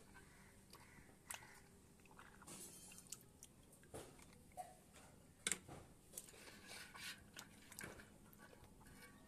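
Faint, scattered clicks and soft rustles of small objects being handled, the sharpest click about five and a half seconds in.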